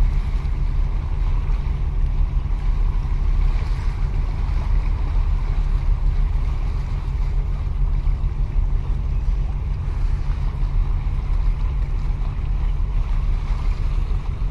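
Steady wind buffeting the microphone, a heavy low rumble, with seawater washing and splashing against concrete breakwater blocks.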